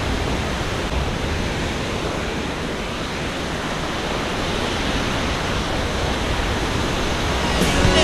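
Steady rushing roar of a nearby waterfall and river, an even noise with no distinct events.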